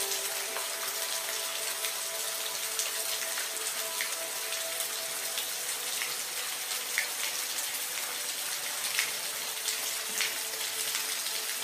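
Steady rain: a dense, even hiss of falling water with individual drops ticking sharply here and there.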